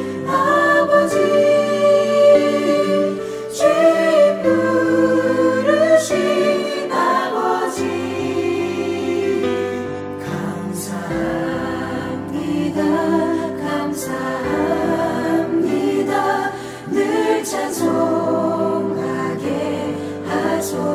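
Four-part mixed choir singing a contemporary Christian song with piano accompaniment, the voices moving together in sustained chords.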